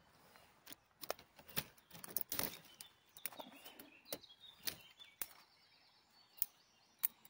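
Small dry twigs cracking: about a dozen sharp, irregular snaps as a campfire is fed with little branches.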